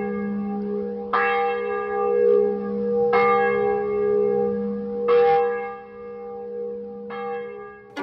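Church bell tolling: a new stroke about every two seconds, four within these seconds, each leaving a long humming ring that carries under the next.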